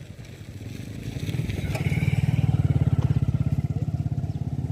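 Motorcycle engine running with a fast, even pulsing throb, growing louder about a second in and easing off slightly near the end.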